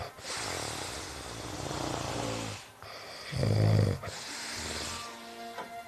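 A person snoring: one long rasping snore, then after a brief pause a louder, shorter one about three seconds in.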